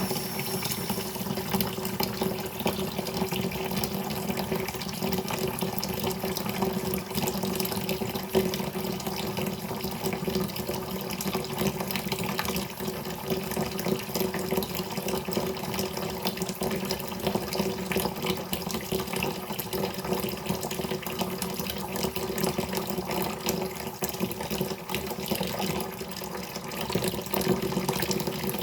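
Water running in a steady, continuous flow, without pause or change.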